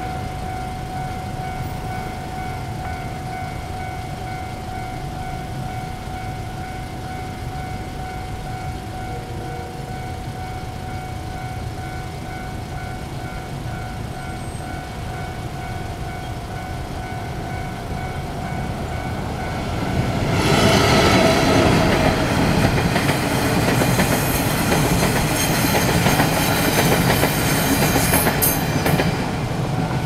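Level-crossing warning bell ringing steadily. About two-thirds of the way in, a Taiwan Railway passenger train passes the crossing loudly, its wheels clattering over the rails, and the noise eases slightly near the end.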